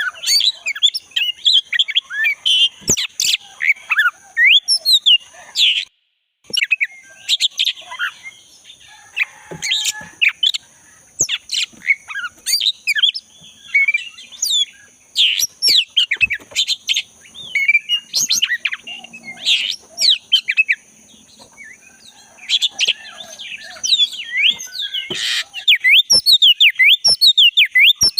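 Black-breasted oriental magpie-robin (kacer dada hitam) in full song: a dense, fast run of varied chirps and whistles, over a steady high-pitched hum. The sound cuts out for a moment about six seconds in, and near the end the bird switches to quick repeated falling notes.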